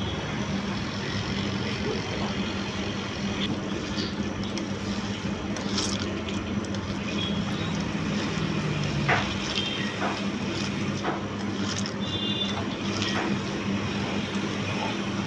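Steady machine hum with a continuous rushing noise, and a few faint clicks about nine to eleven seconds in.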